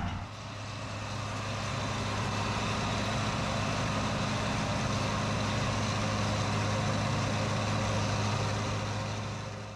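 Tractor engine running steadily, a low even hum that fades in over the first couple of seconds and fades out at the end.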